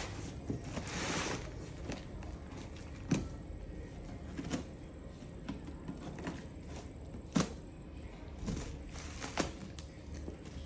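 Ladder packaging being unpacked by hand: a brief rustle about a second in, then a handful of scattered sharp clicks and knocks.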